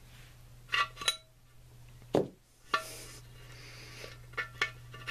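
Metal clinking and knocking against a cast-iron T-90 transmission case as steel shift rails and a metal rod are handled at its shift-rail bosses. There is a handful of separate strokes: two ringing clinks near the start, a duller knock about two seconds in, then lighter ticks.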